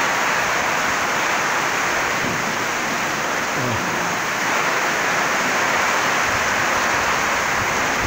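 Heavy rain pouring down in a strong wind, a steady loud rushing hiss.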